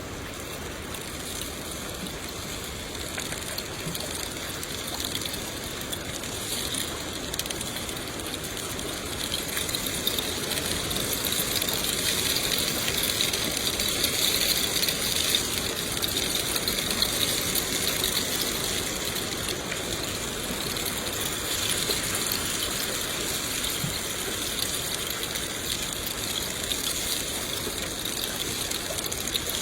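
Steady rain falling, a dense, even patter that grows louder over the first dozen seconds and eases slightly after.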